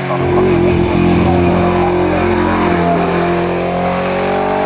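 Engine of an open-cockpit historic sports-racing car pulling hard as it climbs past, its note rising slowly in the last second or two, with tyres hissing on the soaked road.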